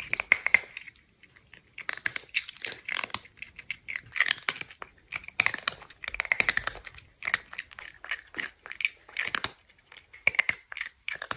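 Crunchy food being chewed and bitten, in irregular bursts of short crackling crunches with brief pauses between them.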